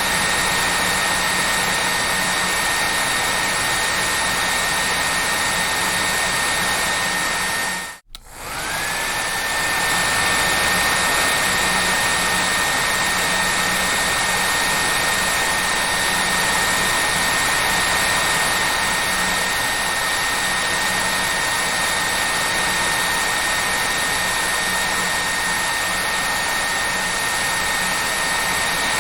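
Hair dryer running steadily: a rushing blow of air with a high motor whine. About eight seconds in the sound drops out for a moment, then comes back with the whine rising quickly back to pitch.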